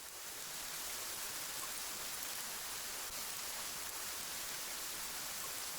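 Steady hiss of rushing river water, fading in at the start.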